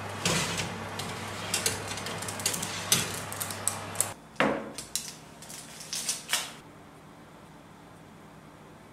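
Metal baking tray scraping and clattering against the oven's wire rack as it is slid out, a run of sharp clinks and scrapes that ends a little after six seconds in. A low steady hum runs underneath and stops about four seconds in.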